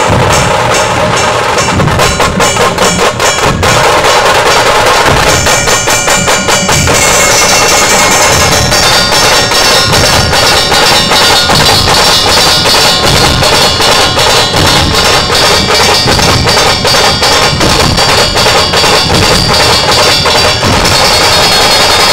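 Dhol-tasha ensemble playing loudly: a group of Maharashtrian dhol barrel drums struck with a heavy stick on one head and a thin cane on the other, in a fast, driving unison rhythm. A high ringing layer joins the drumming about five seconds in.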